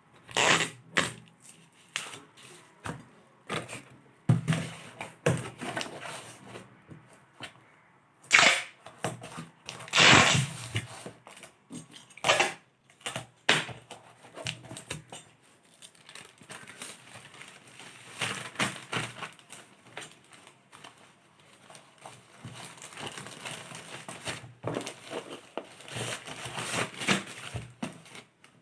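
Packaging being unwrapped by hand: irregular crinkling, rustling and tearing of plastic and paper, with a few sharp snaps.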